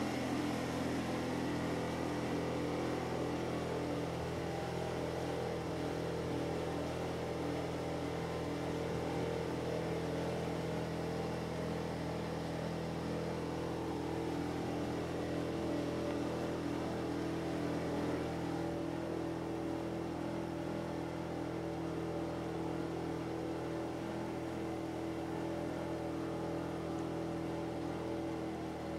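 Motorboat engine running steadily while the boat is under way, an even drone with no change in pitch, heard from on board.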